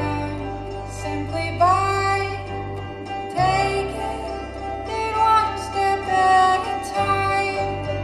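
Music played through a Pyle PPHP-159WMU 15-inch battery-powered PA speaker at about half volume, heard from about 20 feet away: a melody gliding over steady, held bass notes.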